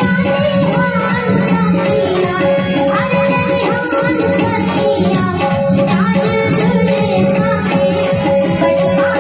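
Live Indian stage music: a woman singing over steady held drone notes and a fast, rattling percussion rhythm.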